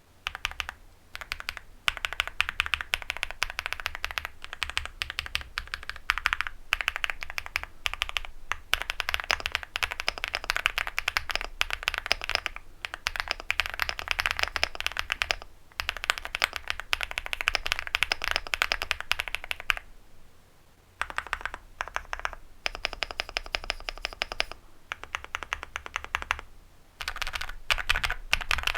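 Typing on a Leobog Hi75 mechanical keyboard with KTT Meow linear switches and Cherry-profile PBT keycaps: dense runs of fast keystrokes with brief pauses between bursts.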